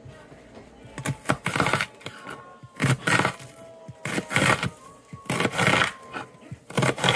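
Chef's knife with a hollow-ground edge slicing through a raw white onion on a wooden cutting board: about five crisp crunching cuts, roughly one every second and a half, each ending as the blade knocks the board.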